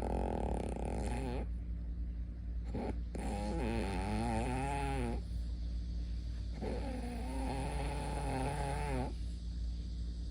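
Slow, regular snoring: about three long snores, each a couple of seconds long, with short pauses between breaths.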